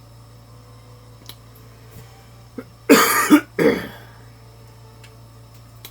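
A man coughing twice in quick succession, about three seconds in.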